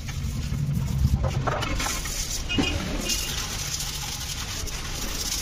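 Light clinks and knocks as scooter body parts are handled and set down on a work stand, over a steady low rumble.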